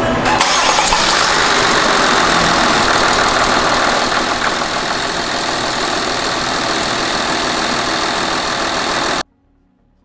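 Hyundai Veracruz V6 diesel engine starting and then running steadily, heard up close in the open engine bay. It cuts off suddenly near the end.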